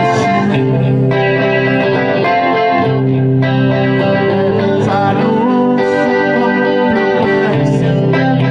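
Background music led by guitar, with sustained notes that change about every second.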